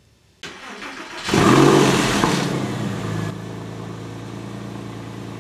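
An engine starting: it catches about a second in, revs once loudly, then falls back to a steady idle for the last couple of seconds.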